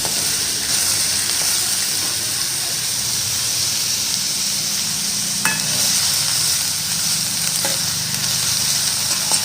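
Chopped onions sizzling steadily as they fry in oil with mustard seeds and cumin in a kadhai on a low flame. A few short clicks come about halfway and near the end.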